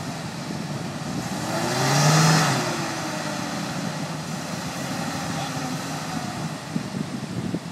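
Truck engine running steadily, revving up and back down once about two seconds in.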